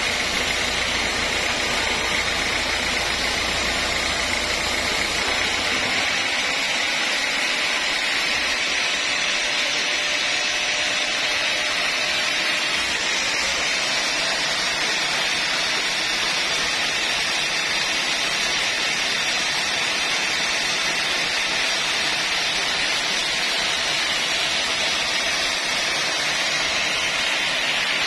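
Band sawmill blade cutting lengthwise through a large log, a loud steady hiss and whine of the blade in the wood. A low rumble under it drops away about six seconds in.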